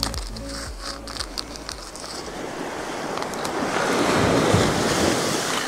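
Surf washing up the beach with wind on the microphone, swelling in the second half. In the first few seconds there is the light crinkle and clicking of a small plastic tackle packet being opened by hand.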